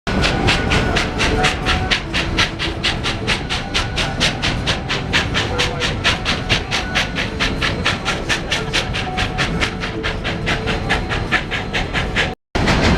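Steam locomotive working the train, its exhaust beating in a fast, even rhythm of about five chuffs a second over the rumble of the cars. The sound cuts out briefly near the end.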